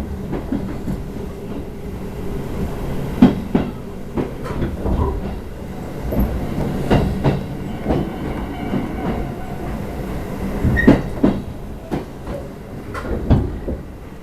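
Chichibu Railway express train running, heard from inside the passenger car: a steady rumble of wheels on track with irregular clacks and knocks as the wheels pass over rail joints.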